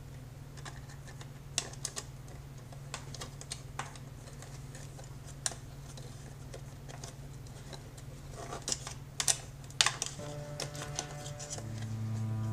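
Scattered small clicks and taps of laptop parts being handled while a replacement power connector and its cord are fitted, over a steady low hum. Background music comes in about ten seconds in and grows louder near the end.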